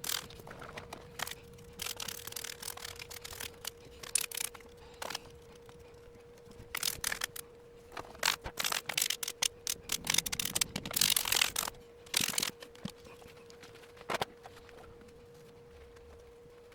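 Hand work on a typewriter's body and panels: irregular clicks, knocks and scraping, with a longer stretch of rubbing or scrubbing about ten seconds in. A faint steady hum sits underneath.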